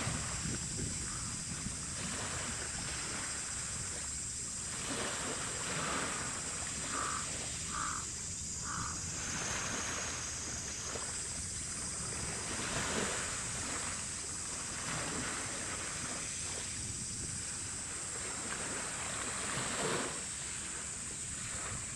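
Wind buffeting the microphone over harbour water, with a steady high-pitched hiss and three short high notes about seven to nine seconds in.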